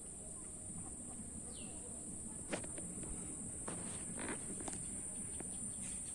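Steady, high-pitched drone of insects in an outdoor chorus. A sharp click comes about two and a half seconds in, with a couple of short rustles or knocks a second or so later.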